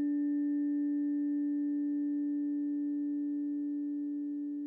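A harmonic blend of steady, pure sustained tones, the planetary frequencies for Mars and Neptune sounded together as a trine. It holds one unchanging chord and fades slowly toward the end.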